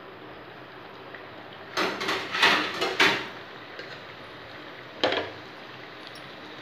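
Rice-flour puri deep-frying in hot oil, a steady sizzle of bubbling oil. A quick run of loud clattering knocks about two seconds in, lasting about a second, and a single knock about five seconds in.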